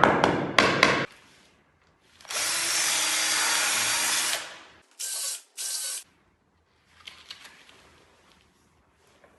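Knocking on parquet to find hollow spots where the boards have come away from the subfloor, stopping about a second in. Then a small electric drill runs steadily for about two seconds, boring a 2.5–3 mm hole into the parquet, followed by two short bursts of the drill and some faint scraping.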